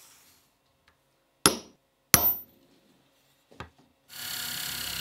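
Two sharp knocks about a second and a half apart, the second with a short metallic ring. Near the end, a power drill runs steadily for about a second and a half while cup hinges are fitted to a chipboard cabinet front.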